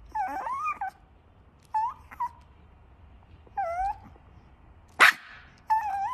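A puppy whining in short, high whimpers, four in all, that bend up and down in pitch. One sharp click about five seconds in is the loudest sound.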